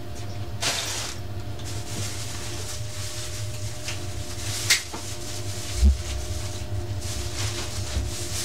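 Household handling noises in a kitchen over a steady low hum: a brief rustle less than a second in, a sharp click or knock in the middle, and a dull low thump about six seconds in, like cupboards and items being moved.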